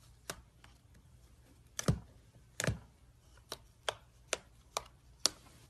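Slime being played with by hand, making a series of sharp, uneven clicks and pops, about eight in all, two of them heavier with a dull thump.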